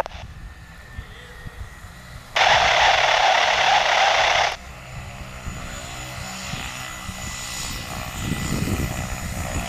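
Cessna Grand Caravan's Pratt & Whitney PT6A turboprop and propeller running at low power as it taxis, the hum swelling near the end as the aircraft turns toward the listener. About two seconds in, a burst of radio static hiss cuts in for about two seconds and stops abruptly.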